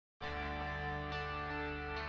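Intro music that starts abruptly a fraction of a second in, with held chords that change about a second later.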